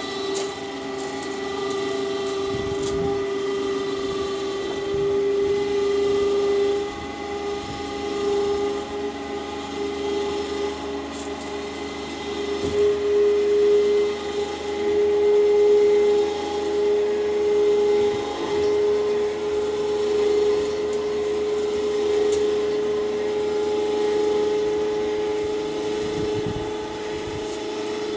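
Electric ATV winch motor running steadily with a whine under load, winching a 205-pound Lund WC12 aluminum boat up onto a truck rack. A few light knocks sound as the boat moves.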